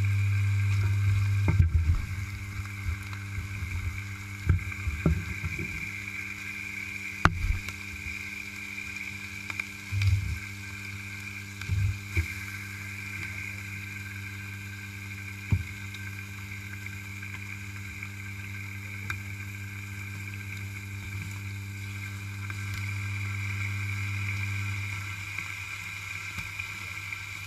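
Bacon strips sizzling in a hot frying pan, heard close up, over a steady low hum. Scattered short knocks as more strips are laid in and the tongs touch the pan.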